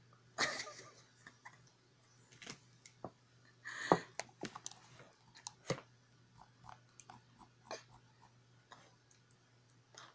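A toddler's kiss on a cheek, a soft wet smack just after the start. Then scattered soft clicks and small mouth noises, with a short cluster a little before the halfway point.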